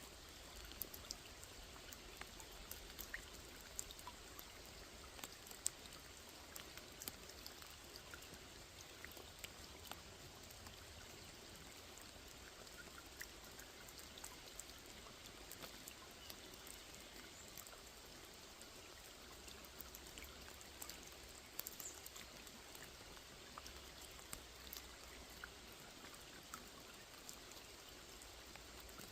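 Rain falling on a small lake: a faint, steady patter with many individual drops ticking sharply here and there.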